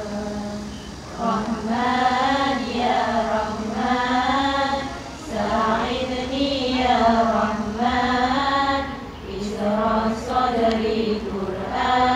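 A group of women chanting an Islamic salawat in unison, in long sung phrases with short breaks between them.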